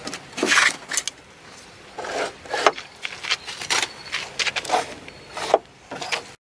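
Irregular handling noises: short knocks, scrapes and rustles, a few a second, cutting off suddenly near the end.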